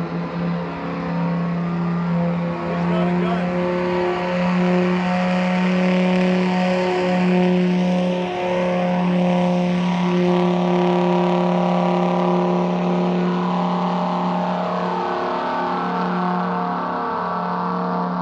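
Loud, steady engine drone of a speedboat running at speed across the lake, mixed with the helicopter flying alongside it.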